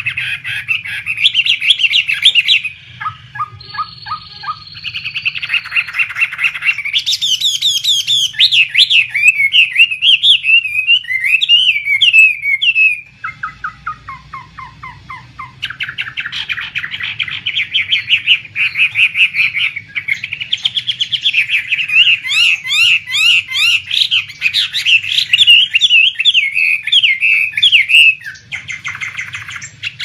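Chinese hwamei (poksay Hongkong) singing a loud, varied song of fast repeated notes and rising and falling whistled phrases. The song drops to quieter, lower falling notes for a few seconds around the middle before picking up again.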